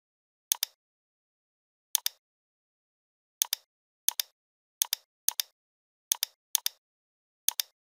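Computer mouse clicks: about nine sharp double ticks, press and release, at an uneven pace, some a second or more apart and others in quick pairs.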